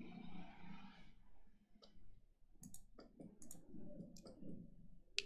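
Push button on an nRF52840 development kit being pressed over and over: a run of faint, irregular small clicks, with a sharper one near the end.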